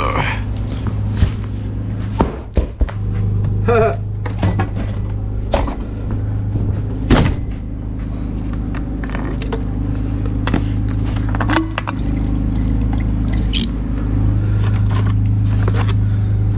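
Two-stroke chainsaw engine idling steadily, with scattered knocks and clatter as tools and jugs are handled.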